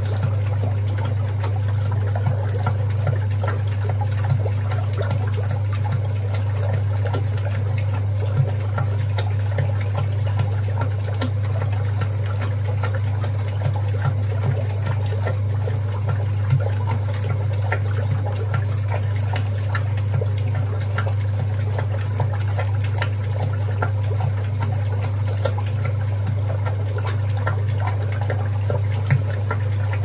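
1961 Hoover Keymatic 3224 front-loading washing machine washing: wet, sudsy laundry and water sloshing in the turning drum over the machine's steady low hum.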